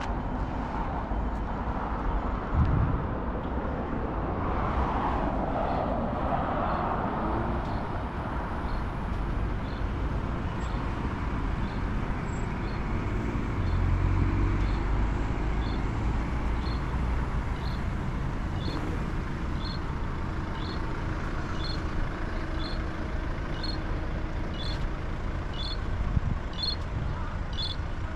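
Street traffic: a steady low rumble of road vehicles, with one passing about five seconds in and a heavier vehicle rumbling past near the middle. From about ten seconds in, a steady high-pitched ticking, about one and a half ticks a second, grows louder toward the end.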